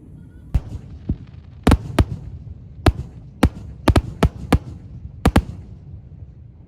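Aerial firework shells bursting: about a dozen sharp, irregular bangs, some in quick pairs, over a steady low rumble.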